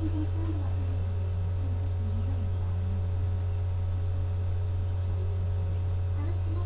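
Steady low electrical hum with faint higher steady tones, and faint indistinct wavering sounds underneath.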